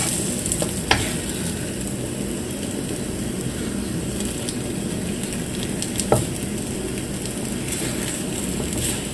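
Pancake batter sizzling in a little oil in a non-stick frying pan while a wooden spatula scrapes and pushes it around. A couple of sharp knocks of the spatula against the pan come about a second in and about six seconds in.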